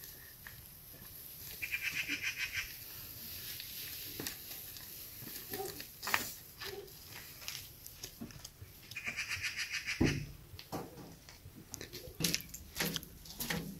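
Two rapidly pulsing animal calls, each about a second long, one near the start and one around the middle, over footsteps and the knocks and rustle of dry sticks and brush being carried, with a heavier knock about ten seconds in.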